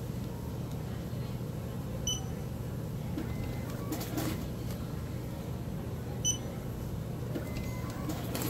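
Two short, high electronic beeps about four seconds apart from a lottery terminal as tickets are cashed, over a steady low hum, with a brief rustle between them.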